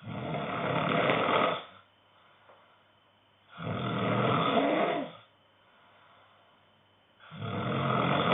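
A sleeping man snoring loudly: three long, rasping snores, one about every three and a half seconds, with quiet breathing pauses between them.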